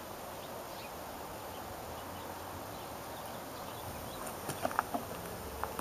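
Faint steady hiss, then from about four seconds in a light crackling and popping as muriatic acid fizzes on bare concrete, eating into its surface.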